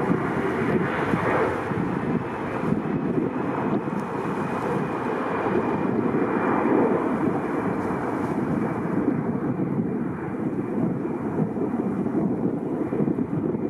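Airliner engine noise: a steady, dense rushing sound with no distinct whine.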